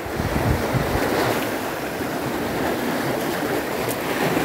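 Steady surf washing on the shore, with gusts of wind buffeting the microphone in the first second.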